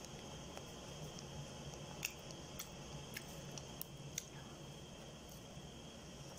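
Close-up eating sounds of chicken eaten by hand: five sharp clicks and crackles between about two and four seconds in, over a faint steady hiss.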